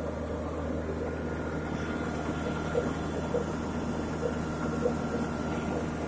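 Engine of a horizontal directional drilling (surface boring) rig running steadily, with a faint whine above its low drone. A few short knocks come from the machine in the second half.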